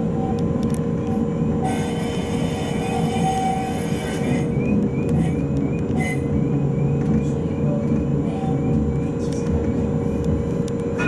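Light rail tram running, with a steady low rumble and hum. About two seconds in, a high-pitched wheel squeal lasts about three seconds, followed by a run of short chirps about twice a second.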